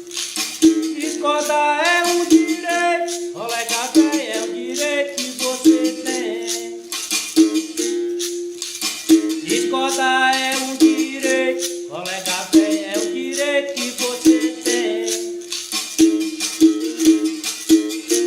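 Berimbau played in a rhythmic capoeira toque: the steel string struck with a stick, stepping between two notes, with the caxixi rattle shaking along.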